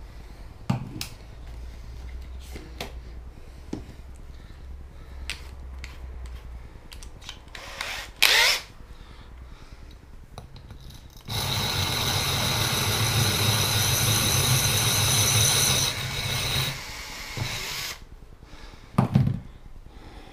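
Cordless drill boring into the glass of an empty rum bottle: a steady loud whine with a grinding edge for about five seconds in the second half, tailing off as it stops. Before it, a short loud burst about eight seconds in and a few light knocks of the bottle being handled.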